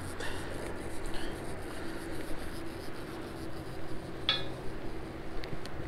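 Hands rubbing and handling fishing tackle (a cork float and line) close to the microphone, with a few sharp clicks about four seconds in and again near the end, over a steady low hum.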